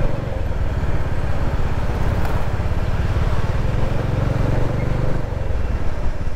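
Bajaj Dominar 400's single-cylinder engine running under way, with rushing wind noise on the rider's microphone; the engine note eases about five seconds in.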